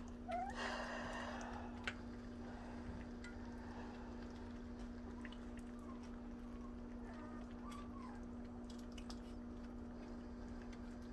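Puppies eating soft food from a steel bowl: faint lapping and chewing over a steady low hum, with a brief noisy scuffle just after the start and a few faint high squeaks later on.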